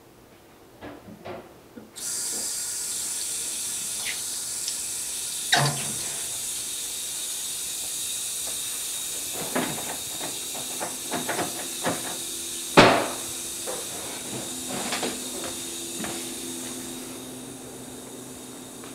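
A steady hiss that starts abruptly about two seconds in, with scattered clicks and knocks over it; the loudest is a sharp knock about two-thirds of the way through.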